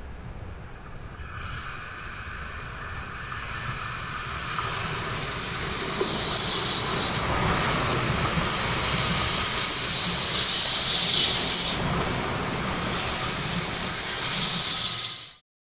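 Two coupled SBB Seehas Stadler FLIRT electric multiple units passing: the rush of wheels on rail with a high hiss builds over a couple of seconds, stays loud through the middle and eases a little, then cuts off suddenly near the end.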